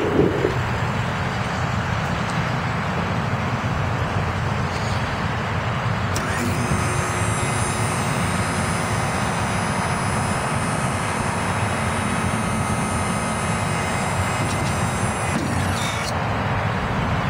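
Truck liftgate's hydraulic pump motor whining steadily for about ten seconds, starting and stopping abruptly, as the platform is raised; a steady low rumble runs underneath, with a couple of dull thumps at the very start.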